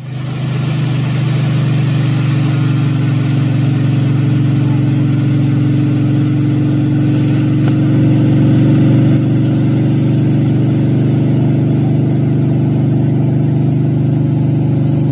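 Motorboat engine running steadily at speed while towing a water skier, a constant low hum.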